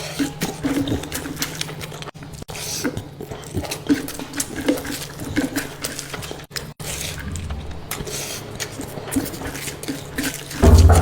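Close-miked chewing and wet mouth sounds of someone eating: irregular smacks and clicks over a steady low hum, with a low thump near the end.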